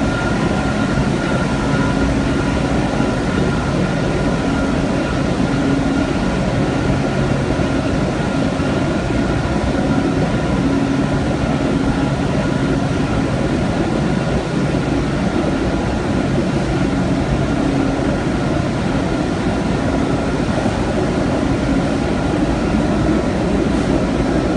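Thermal paper coating machine running: a loud, steady mechanical din from its rollers, drive motors and dryer, with a low hum and a faint higher whine held throughout.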